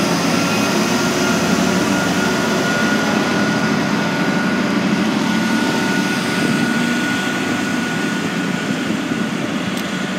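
Container freight train rolling past at speed: a steady loud rumble and hiss of wagon wheels on the rails, with a thin steady whine above it, easing a little near the end.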